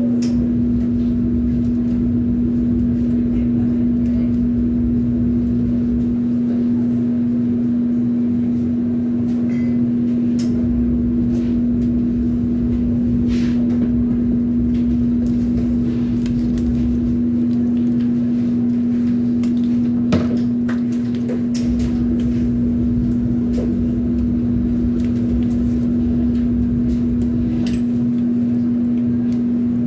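Steady electric motor hum of running pizzeria kitchen equipment, one low even tone, with a few light clicks and knocks of ingredients and utensils being handled, the sharpest about two-thirds of the way in.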